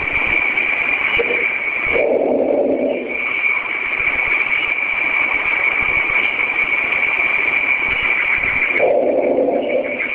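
Noisy, radio-like recording of a reported 'strange sound': a steady hiss with a constant high whine, and a lower drawn-out sound about two seconds in and again near the end.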